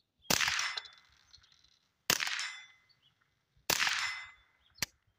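Three suppressed .22 LR rifle shots from a 10/22 wearing a JK Armament 105 Versa x22 suppressor, fired about two seconds apart, each followed by a brief metallic ringing. A single sharp click comes near the end.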